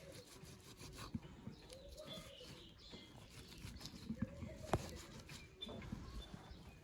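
Faint cooing calls from a bird, a short rising-and-falling note about every two seconds, with scattered faint clicks and knocks.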